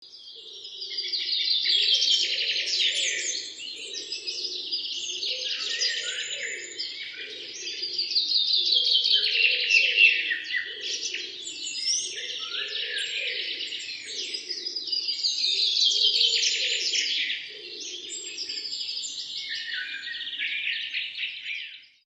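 Many birds chirping and singing together in a dense chorus of quick chirps and falling trills, with a lower call repeating about once a second beneath them. The chorus starts and stops abruptly.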